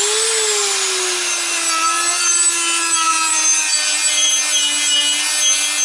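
Small electric rotary tool with a sanding drum spinning up with a rising whine, then running steadily as it grinds rust off the face of a steel brake disc, its hum sinking slightly under load. It stops near the end.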